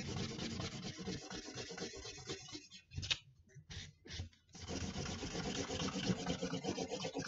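Marker scribbling quickly back and forth on paper as a sheet is coloured in solid, with a short break about three seconds in.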